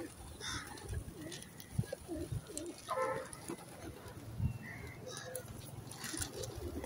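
Flock of feral pigeons cooing, with low coos going on steadily and a few short higher calls.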